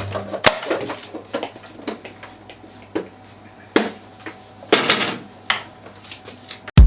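Irregular sharp knocks and clatters, like cookware and utensils being handled in a kitchen, with a loud low thump near the end.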